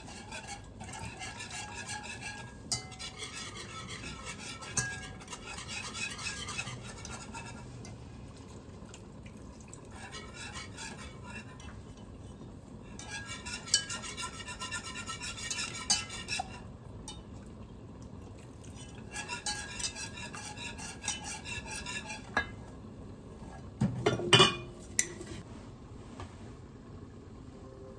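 A kitchen utensil stirring and scraping in a pot or pan in three bouts, with clinks against the metal. A louder clatter of cookware comes a little after the middle.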